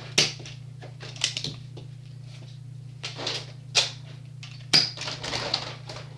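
Sharp plastic clicks and clacks of Nerf blasters being handled, primed and fired, in irregular bursts over a steady low hum.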